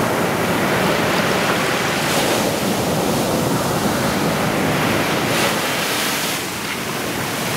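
Ocean surf breaking close by and foam washing up the sand: a steady rush of water.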